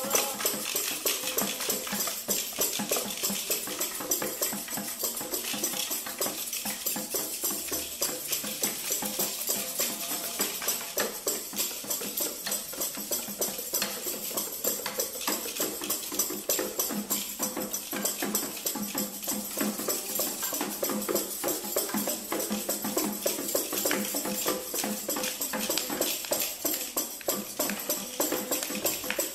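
Improvised piece for small hand percussion: many rapid, irregular taps and clicks overlapping without a steady beat, with a faint held tone now and then.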